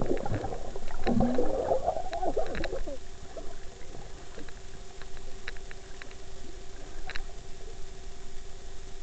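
Underwater sound recorded through a sports camera's waterproof housing: a burst of bubbly churning water from a swimmer moving close to the camera for the first three seconds or so, then a steadier muffled hum with scattered sharp ticks.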